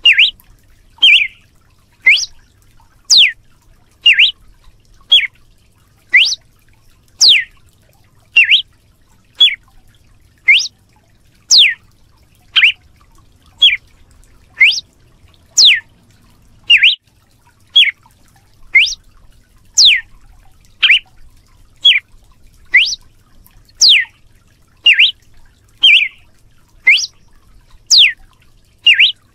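Red-cowled cardinal (galo-de-campina) giving its whip-like 'açoite' song: a loud, sharp whistled note about once a second, each falling steeply in pitch, some longer and some shorter.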